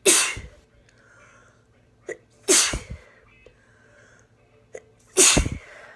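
A person sneezing three times in a row, about two and a half seconds apart, in a sneezing fit brought on by a cold. The second and third sneezes each come after a short, sharp intake of breath.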